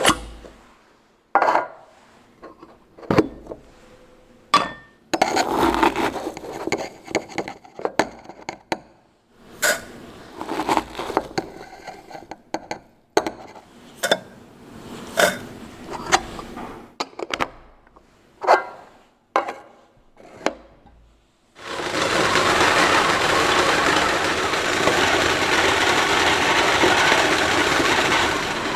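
Crockery and glass handled while making tea: a string of separate clinks, knocks and scrapes with short pauses between them. About three quarters of the way through, water starts running loud and steady.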